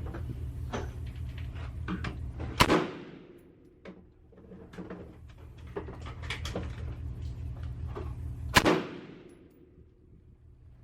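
Two gunshots about six seconds apart, each a sharp crack with a short echo, with smaller clicks and knocks in between.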